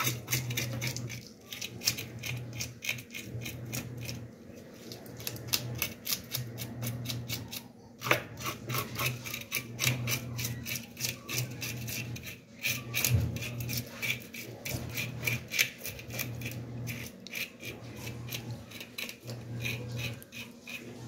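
Knife blade scraping the scales off a whole mojarra on a plastic cutting board: quick, rasping strokes, several a second, with short pauses as the fish is turned.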